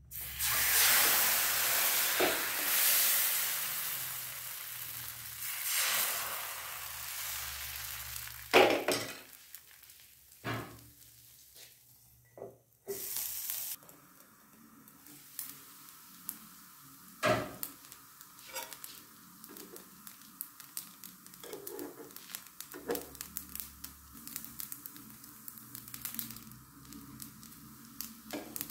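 Thin neer dosa rice batter poured onto a hot non-stick tawa sizzles loudly, and the sizzle fades over about eight seconds. A few sharp knocks follow as the pan's lid is handled, then a faint crackling of the dosa cooking on the pan.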